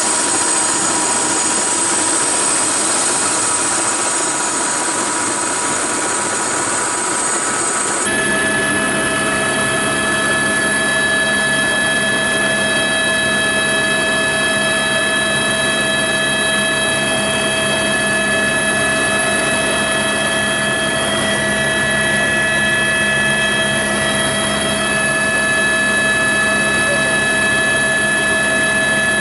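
Helicopter engine and rotor noise: a steady, loud drone with several high whining tones held over it. The mix of tones changes abruptly about eight seconds in.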